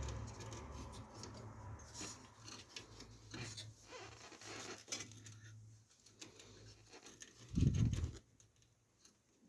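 Handling noise of PC power cables being fitted and routed inside a computer case: scattered small clicks, scrapes and rubs of cable and plastic. A low hum fades out about six seconds in, and near the end comes one dull thump, the loudest sound.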